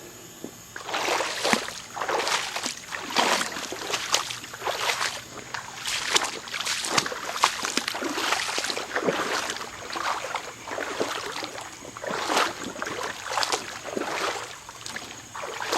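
Footsteps wading through a shallow creek, each step splashing and sloshing the water, about two steps a second, starting about a second in.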